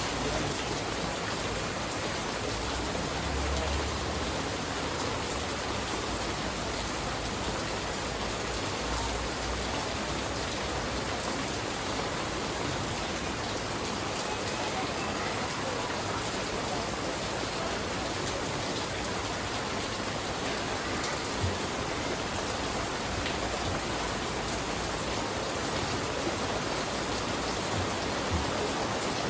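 Steady rain falling, an even hiss, with two faint taps in the second half.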